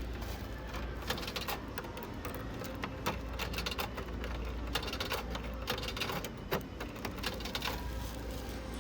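Irregular light clicks and rattles of small hard items being handled, over a low steady hum.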